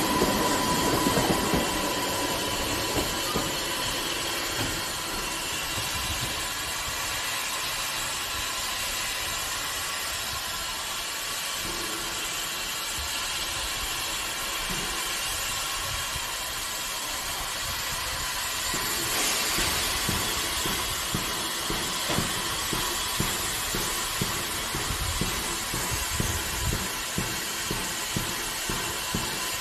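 Steam locomotive standing at the platform with a steady hiss of steam. At the start an electric Class 484 train pulls away, its whine and rumble fading within the first two seconds; the hiss grows a little louder later on.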